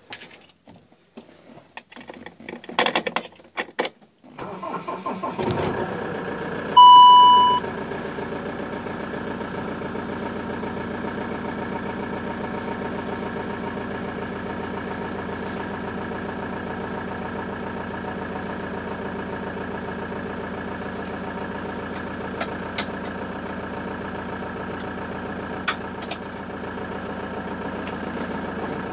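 A few clicks, then a car engine cranks about four seconds in, catches and settles into a steady idle. Just after it starts, a short loud electronic beep sounds once.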